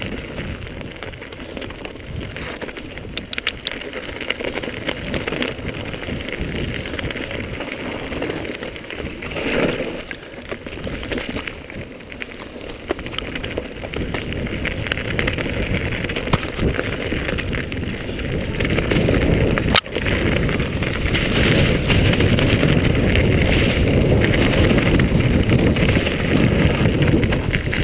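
Mountain bike running fast down a dirt trail: wind buffeting the microphone over the rumble of tyres on dirt and the bike rattling over bumps, with one sharp knock about twenty seconds in. It gets louder over the last several seconds.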